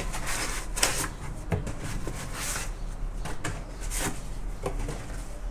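Cardboard being torn apart by hand, a few short ripping tears spaced a second or two apart.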